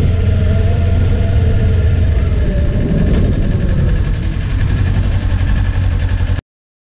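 Kawasaki Ninja 400's parallel-twin engine running at low speed with a deep steady rumble, its note falling and easing off as the bike slows toward a stop. The sound cuts off abruptly about six and a half seconds in.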